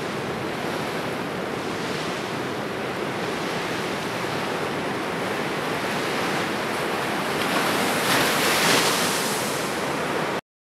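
Ocean surf breaking on a sandy beach: a steady rush of waves that swells louder about eight seconds in, then cuts off suddenly near the end.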